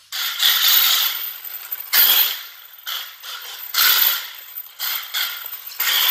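Electric RC burnout car driven in repeated short bursts on a slippery floor: tyres spinning and skidding with each surge of throttle, about five or six surges, over a thin high whine.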